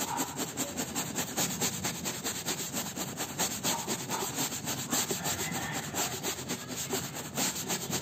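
Stiff-bristled, wooden-backed scrub brush scrubbing a soapy fabric lanyard on a plastic board in quick, even back-and-forth strokes.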